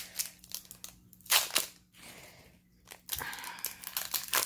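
Foil booster pack wrapper crinkling and being torn open in short irregular bursts, with a quieter lull in the middle.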